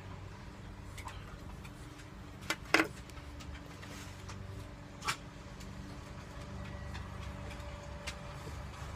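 Short lip pops and clicks from puffing on a tobacco pipe, a pair about two and a half to three seconds in and one about five seconds in, over a steady low hum.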